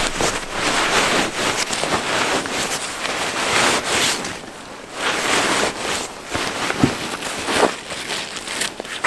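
Close, irregular rustling and shuffling of a person moving about right by the microphone, with a brief lull about halfway through.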